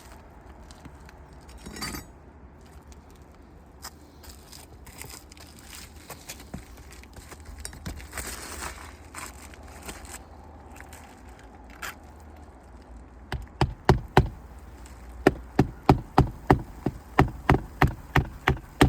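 Hammer striking on an asphalt-shingle roof: two blows a little past halfway, then a steady run of about two to three blows a second near the end. Each hit shakes loose granules that shower down the roof, a sign of the shingles degranulating. Before the hammering, faint clicks and scraping over a low wind rumble.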